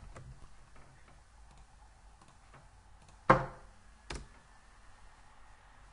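Clicks and taps of a computer keyboard and mouse: a few faint taps, then a sharp, loud click about three seconds in and a smaller one just under a second later.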